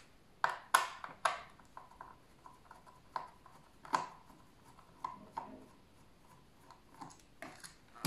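A screwdriver turning out the screws of a Dyson V10 cordless vacuum's plastic battery pack: a series of small, sharp, irregular clicks and light scrapes of metal on screw and plastic housing.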